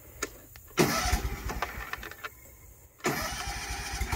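Kawasaki engine of a Swisher Brush King tow-behind brush mower being started on choke by its electric starter. It cranks in two bursts, a second and a half and then about a second long, with a short pause between, and catches right at the end, settling into a steady run.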